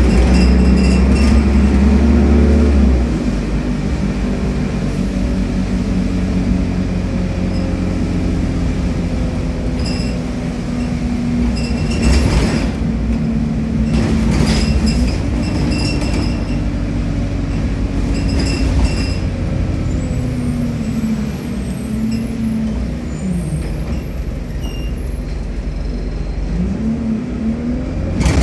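Alexander Dennis Enviro200 single-deck bus heard from inside the saloon: its diesel engine pulls hard with a heavy drone that eases about three seconds in, then runs on steadily with several knocks and rattles from the body. Around twenty seconds in the engine note falls as the bus slows, and it rises again near the end as it accelerates away.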